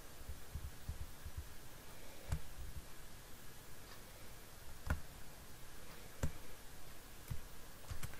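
Computer mouse clicking: a handful of sharp single clicks spaced a second or more apart, with a few soft low knocks in the first second and a half, over faint room hiss.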